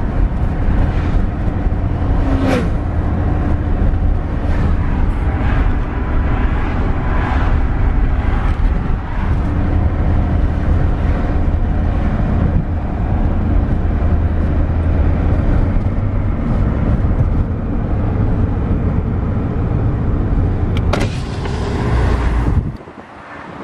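Car driving along: steady low road and engine rumble with broad road noise, cutting off abruptly near the end.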